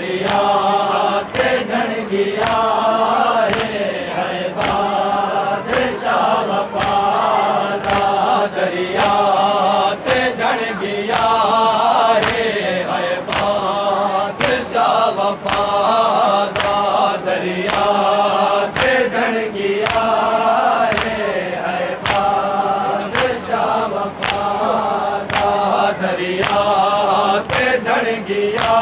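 A crowd of men chanting a mourning lament (nauha) in unison, with a steady beat of chest-beating (matam) slaps running under the chant.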